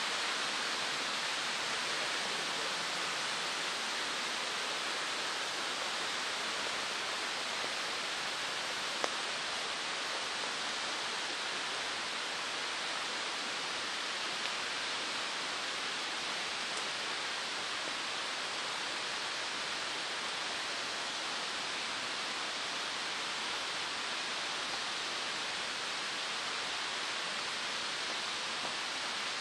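Steady, even rushing noise outdoors, unchanging throughout, with one faint click about nine seconds in.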